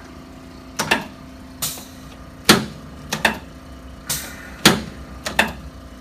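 A series of sharp knocks and clicks during a chiropractic adjustment, about ten in six seconds, some in quick pairs, over a steady low hum.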